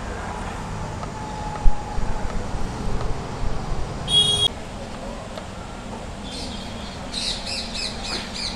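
A T-handle spanner clicking and knocking against metal as the coolant drain bolt is threaded back into a KTM Duke 200's engine and tightened, with one sharp knock about two seconds in. Near the end a bird chirps in a quick run of short calls.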